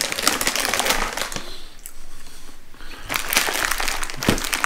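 Plastic snack bags crinkling as they are handled. The crackling comes in two spells, with a lull of about a second in the middle.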